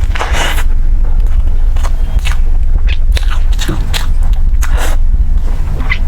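Close-miked chewing and biting into a tiger-skin dish, with short moist smacks and crunches at irregular intervals of about half a second. A steady low hum runs underneath.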